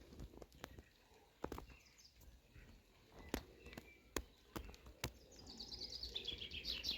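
Scattered light clicks and taps, then a small bird singing a quick run of high chirping notes over the last second or two.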